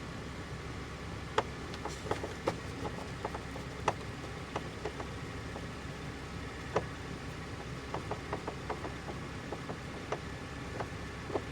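Scattered sharp clicks and small taps of a screwdriver working at the screws and plastic trim of a car door panel, over a steady low hum.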